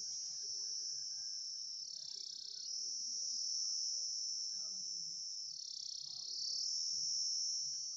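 Insects trilling in a steady high-pitched drone, dropping a little lower in pitch twice for under a second.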